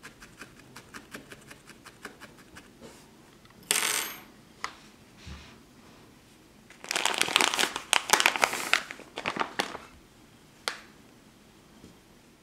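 Felting needle jabbing repeatedly into wool on a foam felting mat, about five quick pokes a second. Then comes louder scratchy rustling as felted wool and loose wool roving are handled.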